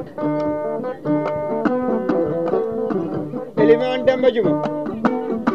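Plucked string instrumental: a hoddu, the Fula skin-covered lute, picking a quick, busy melody together with an acoustic guitar, with a brighter, louder flourish about three and a half seconds in.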